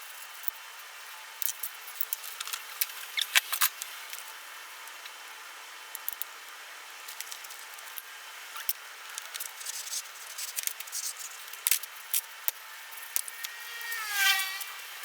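Scattered light clicks and taps of hand work on parts and tools, with a short falling squeak near the end.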